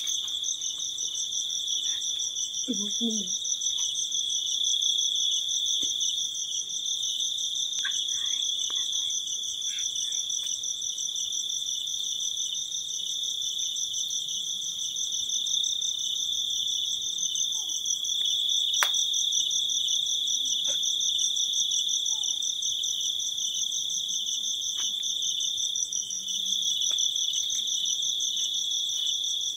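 Crickets chirring in a steady, continuous night chorus, a shrill fast-pulsing trill at two high pitches. A single sharp click comes about two-thirds of the way in.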